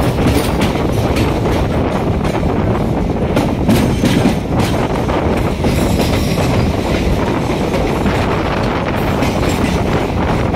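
MEMU electric multiple-unit train rushing past on the adjacent track, its wheels clattering steadily over the rail joints. Heard from the doorway of a moving train, with the rush of air and the wheel noise of both trains.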